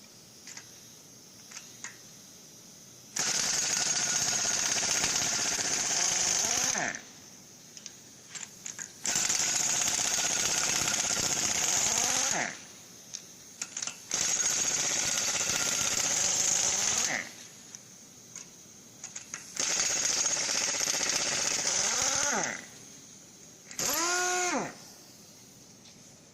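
A power tool run in five bursts of a few seconds each, the last one brief, its pitch falling as the motor winds down after each release of the trigger.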